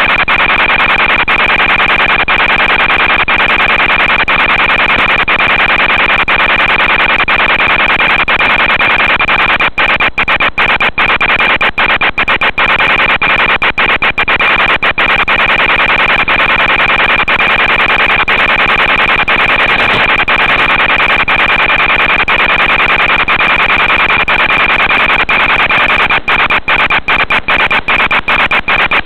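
Loud steady static hiss from an analog FPV video link's audio channel, with a fixed high-pitched whine through it. Short crackling dropouts come in clusters about a third of the way in and again near the end.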